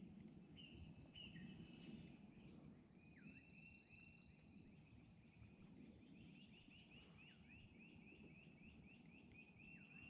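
Faint songbirds singing: two short buzzy trills and a long run of rapid, repeated chirps over low background hiss.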